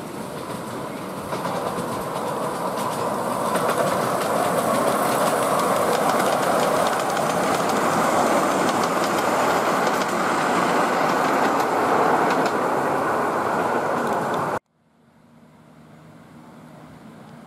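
A 7¼-inch gauge Queensland Rail BB18¼ class steam locomotive and its ride-on cars rolling past close by: a steady rumble of steel wheels on the rails with many fine clicks, growing louder as the train nears. The sound cuts off suddenly about fifteen seconds in, leaving a much fainter background.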